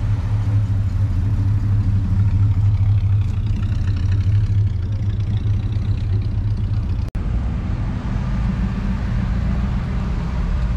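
Engine rumble of a 1960s American full-size sedan driving slowly past and pulling away, loudest in the first five seconds. After a cut about seven seconds in, another engine is heard as a large American station wagon rolls by.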